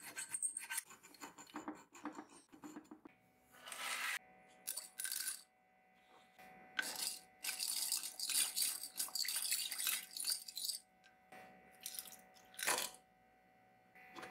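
A hand file rasping in quick strokes across a screw head clamped in a vise for about the first three seconds. Then scattered clinks and knocks, and a few seconds of scraping and rattling of small metal parts against a glass jar as gloved hands work them in cold bluing solution.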